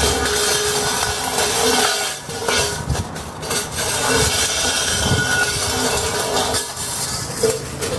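A Labrador puppy shoving a stainless steel dog bowl across concrete with her nose. The metal bowl scrapes and rattles continuously, with a steady ringing tone from the metal and a few brief pauses.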